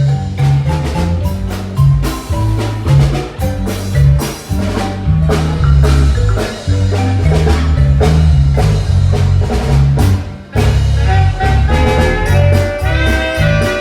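Loud music with a pulsing bass line and quick struck melodic notes.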